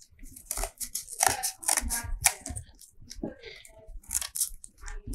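Scissors snipping through thin card in a run of short, irregular cuts.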